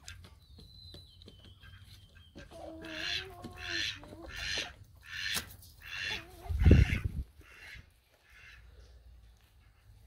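Backyard poultry calling: a thin, high call falling slightly in pitch, then a run of about eight loud calls evenly spaced, roughly two a second. Partway through the run there is one loud low thump.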